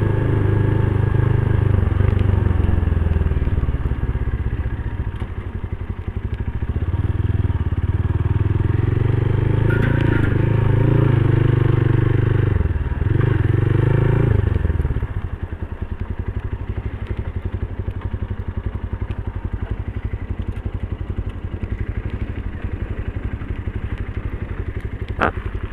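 Motorstar Cafe 150 motorcycle engine running under way, rising and falling in pitch with the throttle, then settling to a steady, evenly pulsing idle about fifteen seconds in.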